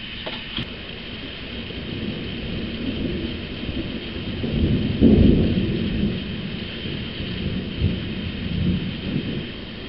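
Rolling thunder: a low rumble that builds, peaks about five seconds in, and rumbles on with smaller swells before easing off near the end.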